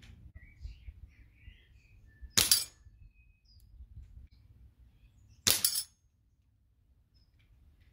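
Two .177 air rifle pellets striking a steel resetting spinner target about three seconds apart, each a sharp metallic clang with a short rattle as a paddle flips over onto the top bar.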